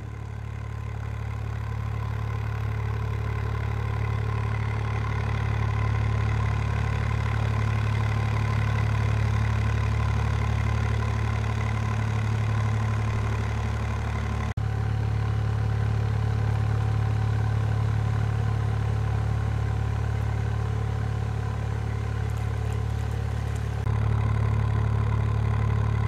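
Narrowboat's engine running steadily while the boat is under way, a constant low drone with a steady hum above it. There is a momentary break about halfway through, and it is a little louder near the end.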